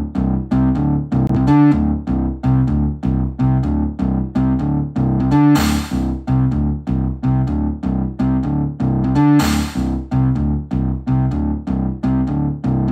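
Mackie Thump Go battery-powered PA speaker playing an instrumental keyboard track with a steady beat of about three notes a second and a cymbal crash about every four seconds. It is driven flat, with no EQ, at the loudest level it reaches before clipping.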